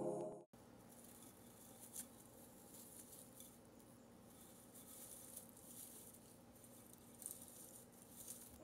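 Background music cuts off at the start. Then comes a faint rustle and crackle of dried herb stalks being stripped by hand over a bowl, with a few small ticks.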